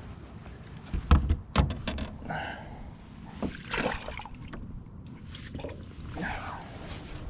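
Northern pike being handled in a boat while a deeply swallowed lure is worked free: two sharp knocks about a second in, then scattered rustling and clatter.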